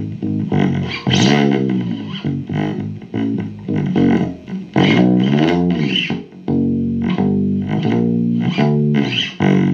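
Guitar music: notes picked one after another in a quick line, with several bent notes that glide up and back down, the low register strongest.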